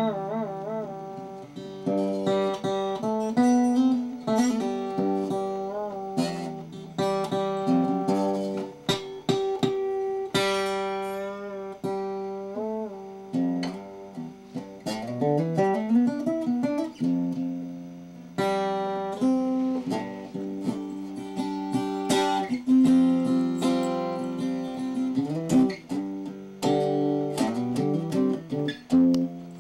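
Acoustic guitar played solo: a continuous run of picked notes and chords, with held notes shaken with vibrato near the start and notes sliding up in pitch about halfway through.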